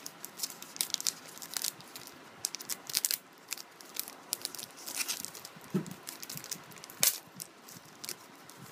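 Trading card pack wrapper crinkling and cards being handled: an irregular run of sharp crackles and rustles, with the loudest snap about seven seconds in.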